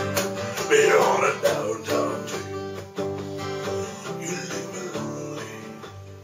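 Acoustic guitar strummed in steady chords, with a man's voice singing over it in the first couple of seconds. The strumming grows gradually quieter toward the end.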